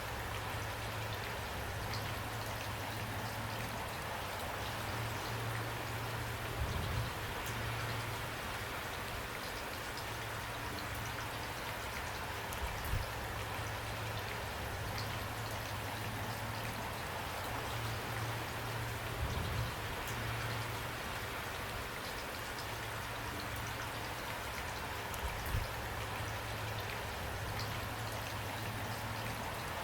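Steady rain falling, an even hiss with a low rumble beneath it. Four dull low thuds come at even intervals, about one every six seconds.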